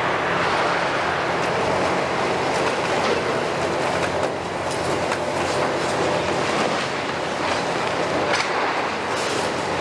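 Kiesel KMC 600 high-reach demolition excavator on a Hitachi 470 base, its diesel running steadily while the demolition tool crushes the brick and concrete wall, with a continuous crackle and clatter of breaking and falling masonry.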